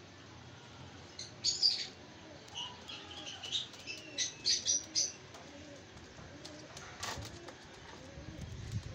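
Short bursts of high bird chirps about a second and a half in and again from about two and a half to five seconds in, over faint cooing of Teddy pigeons in a loft, with a single click near the end.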